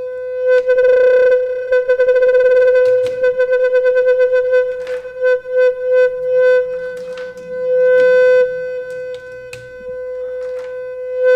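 Make Noise Eurorack modular synthesizer holding one steady note, its loudness and brightness pulsing and fluttering at shifting rates as its gates are modulated by cycling functions in a Krell-style patch. A few sharp clicks sound over it.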